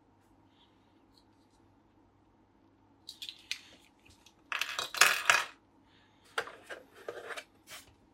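Small action-figure accessories being handled over a plastic packaging tray and set down on a desk: clusters of clicks and clatters starting about three seconds in, loudest around five seconds.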